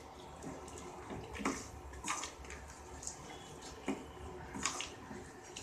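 A metal spoon stirring thick tamarind gravy in a non-stick kadai: soft wet sloshing, with a few short scrapes and clicks of the spoon against the pan.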